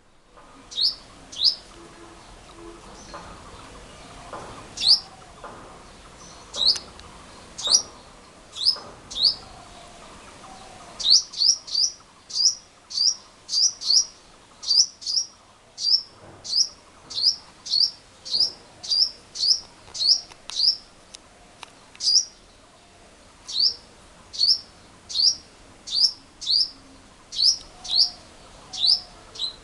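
Male purple sunbird calling: a long series of short, sharp, high chip notes, each dropping quickly in pitch, often in pairs. The notes are spaced out for the first ten seconds or so, then come steadily about one or two a second.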